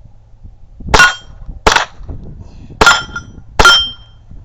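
Four .22 rimfire gunshots about a second apart, the first about a second in. Each shot is followed by the short ring of a steel target plate being hit.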